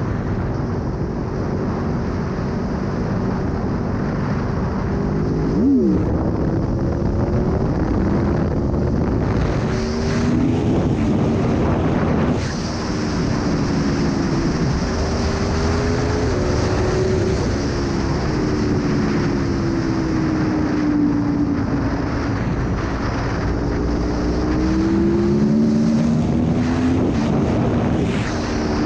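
Aprilia Tuono V4 1100's V4 engine under way, its pitch rising and falling again and again through the revs, with a quick sharp rise and drop about six seconds in. Wind rushes over the microphone throughout.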